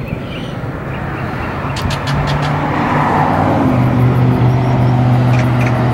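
A car engine running close by, its hum building over the first few seconds and then holding steady, with a slight drop in pitch partway through. A few sharp clicks fall around the second and fifth seconds.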